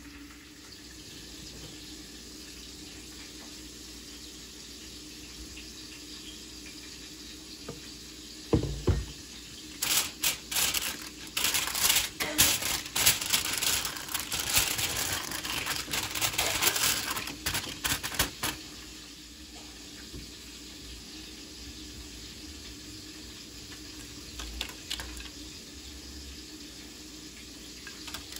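Aluminium foil crinkling and rustling as it is unfolded and smoothed out by hand, a dense crackle lasting about eight seconds through the middle, over a steady low hum. A single low thump comes just before the crinkling starts.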